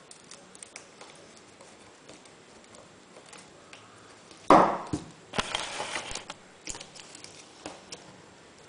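Plastic RC helicopter frame parts and servos handled on a wooden table: scattered light clicks, a sharp knock about four and a half seconds in, then about a second of scraping and rattling, and a few more clicks near the end.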